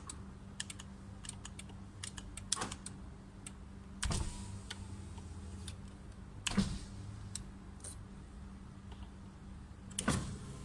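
Buttons on a new aftermarket power window master switch in a Nissan X-Trail clicking as they are pressed, with the electric window motor running for a couple of seconds about four seconds in, showing the driver's window now works.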